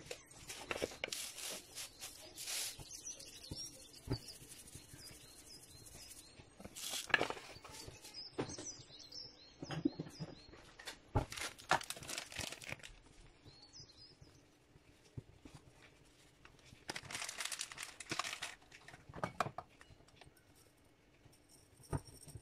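Dry rustling and crinkling in irregular bursts, with a few light clicks, as spice containers are handled and dried herbs and chilli flakes are shaken out.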